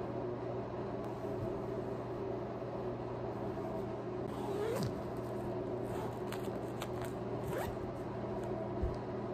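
Pillowcases and a cushion cover being handled: fabric rustling, with zipper-like rasps about halfway through and again a few seconds later, and a soft thump near the end as a pillow is set down.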